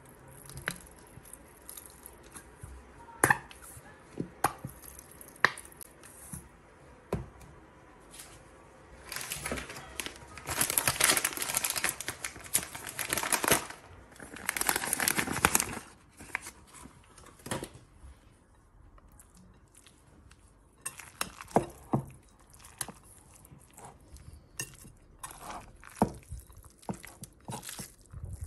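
Metal spoon and fork clinking and scraping against a ceramic mixing bowl while a tuna, sweetcorn and mayonnaise filling is spooned in and stirred, in scattered sharp clinks. About nine seconds in comes a louder stretch of rustling that lasts several seconds.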